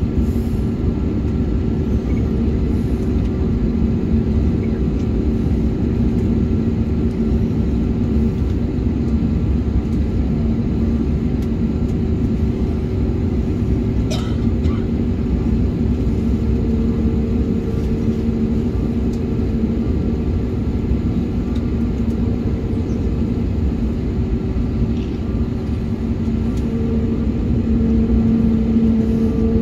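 Steady cabin drone of an Airbus A321neo taxiing on the ground: a low rumble with a steady hum. A second, higher hum joins about halfway through, and there is a single short click near the middle.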